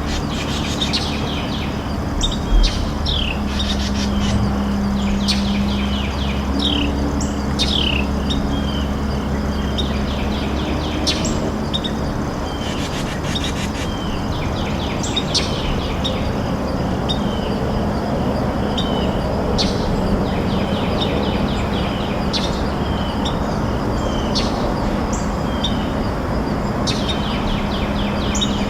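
Wild birds chirping outdoors: short, high, downward-slurred calls every second or two. Beneath them runs a steady low hum.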